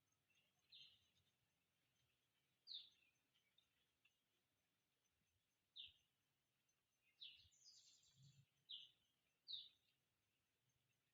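Faint short bird chirps, one every one to three seconds, with a brief higher twitter a little past the middle.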